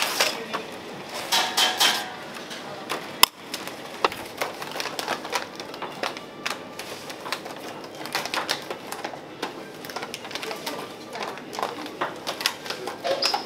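Quick, irregular clicks and knocks of kitchen utensils at work, with one sharper crack about three seconds in.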